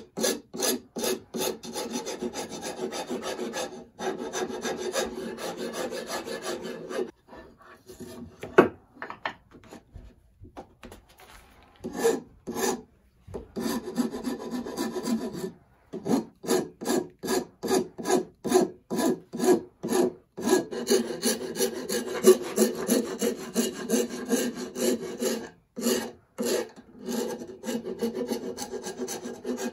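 A hand rasp is being drawn back and forth across a wooden banjo neck to shape it, in quick scraping strokes at about two to three a second. In the middle the strokes become lighter and scattered, with a brief pause, before the steady rasping resumes.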